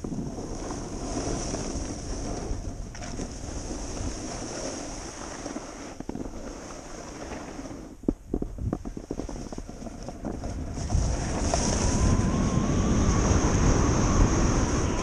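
Wind rushing over a helmet-mounted camera's microphone, with edges scraping over packed snow during a downhill run. A few short scrapes come around the middle, and the rush grows louder from about 11 seconds in as speed picks up.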